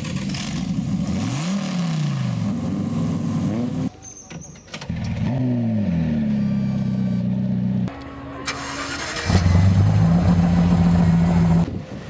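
Several different high-performance car engines in quick succession, each cut off abruptly for the next: revs rising and falling, then one engine dropping from a high start-up rev to a steady idle, and a final loud engine idling.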